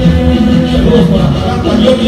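Gaita, a Latin tropical dance tune, playing loud from a 78 rpm record.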